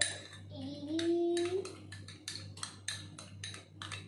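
Kitchen clatter: quick, irregular clicks and light clinks, about three or four a second, over a steady low hum. About half a second in, a single drawn-out voice-like call rises slightly and holds for about a second.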